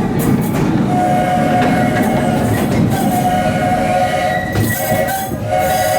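Steam locomotive's Buckeye three-chime whistle sounding a chord: one long blast, then two shorter ones, over the rumble of the moving train.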